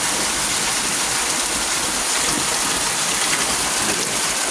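Steady rain falling, an even hiss that holds without letup.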